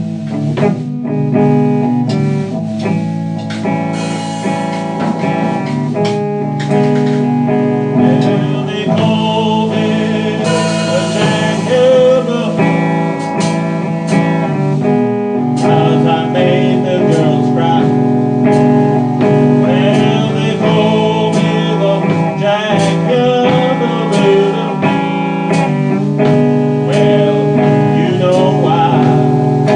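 A slow blues played on guitar, sustained chords under a lead line whose notes bend and waver.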